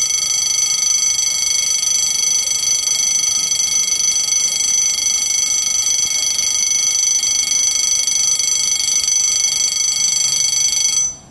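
Level crossing warning bell ringing continuously, a high steady ring that signals an approaching train while the barriers lower. It cuts off suddenly near the end.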